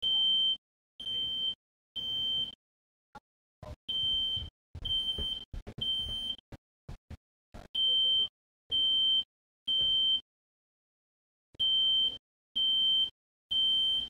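Smoke alarm sounding its fire-alarm pattern: high, piercing beeps of about half a second each in groups of three, with a pause of about a second between groups.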